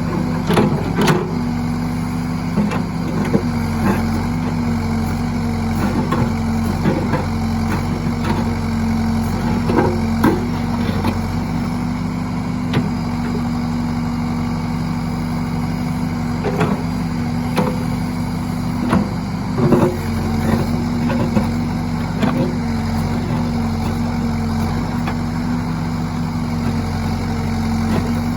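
John Deere 450C loader backhoe's diesel engine running steadily, with scattered short knocks and clanks, the densest about a second in and again around ten and twenty seconds.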